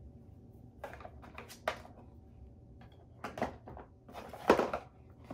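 Skincare packaging being handled while items are picked out of a container: a series of short knocks and rustles, the loudest and longest about four and a half seconds in.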